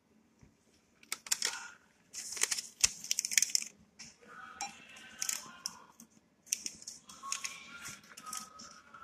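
Paper rustling and clicking in several short bursts as a printed receipt is pulled from a cash machine's receipt slot and handled.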